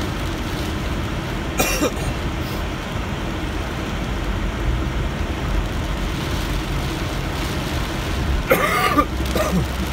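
Steady noise of a car driving in heavy rain, heard from inside the cabin: rain on the windshield and tyres on the waterlogged road over a low engine hum. A brief vocal sound comes about two seconds in and another near the end.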